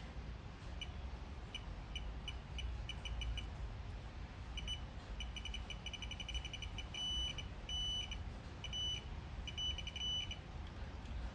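Digital torque wrench adapter beeping: runs of short high beeps that speed up and end in a longer held tone, several times over from about halfway in. This is typical of the adapter signalling that a bolt is nearing and then reaching its set torque.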